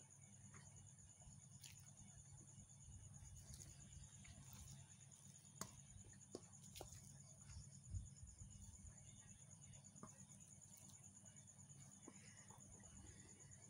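Faint sounds of eating rice by hand from a steel plate, a few soft clicks of fingers and mouth. A steady high-pitched insect trill and a low hum run underneath throughout.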